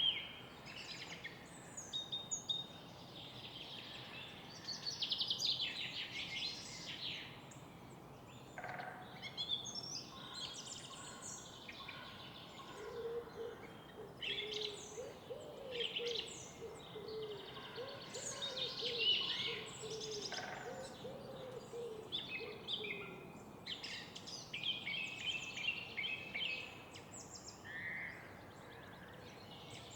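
Many songbirds chirping and trilling over a faint, steady hum of city background noise. From about twelve seconds in, a low wavering call runs for roughly ten seconds beneath the birdsong.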